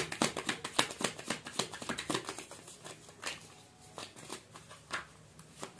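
Tarot cards being shuffled by hand: a quick run of light card clicks and flicks, thinning to a few single snaps after about two seconds.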